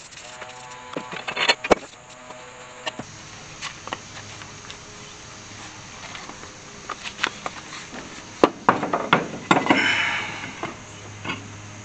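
Short hisses and clicks from an aerosol spray-paint can, then a series of knocks and scrapes as a steel wheel with its tyre is lifted onto a truck's hub and pushed over the wheel studs, the loudest knocks a few seconds from the end.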